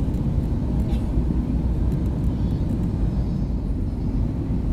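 Steady low rumble of an Airbus A320 heard from the cabin: engine and airflow noise, unbroken throughout.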